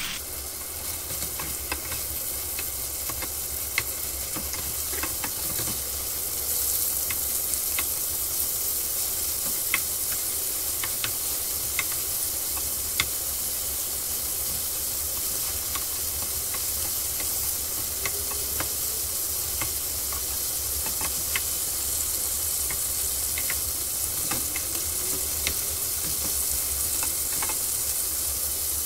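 Cubes of stew beef sizzling as they brown in hot oil in a frying pan: a steady high hiss with scattered sharp clicks and taps while a slotted spatula turns the pieces.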